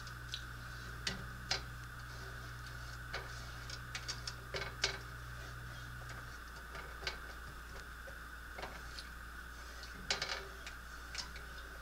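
Plastic spatula scraping and tapping against a nonstick frying pan in irregular clicks and knocks, while the pan is stirred.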